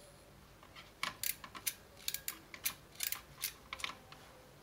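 Modular crimping tool squeezed on an RJ45 plug: a quick run of sharp metallic clicks, starting about a second in and stopping shortly before the end.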